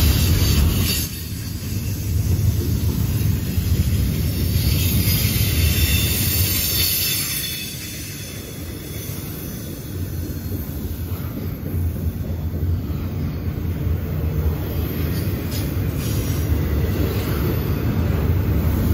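Double-stack container freight train rolling past at close range: a steady heavy rumble of wheels on rail, with thin high-pitched wheel squeals at times.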